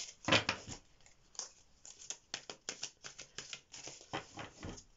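A deck of cards being shuffled and handled by hand: an irregular run of light, sharp card snaps and clicks.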